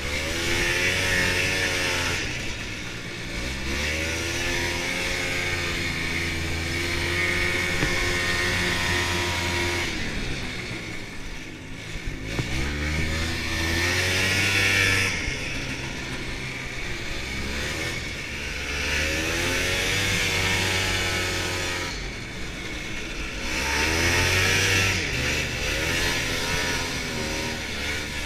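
Two-stroke snowmobile engine under way, its pitch rising as the throttle opens and falling back again several times.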